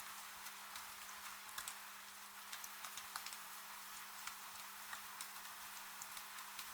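Light rain falling: a soft steady hiss with frequent irregular ticks of individual drops striking a surface. A faint steady low hum runs underneath.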